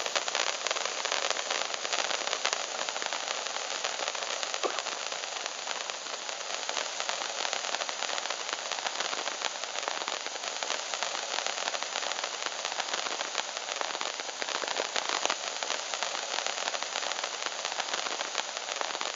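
Several Crowning Glory sparklers burning together, giving a steady, dense crackling hiss of spraying sparks.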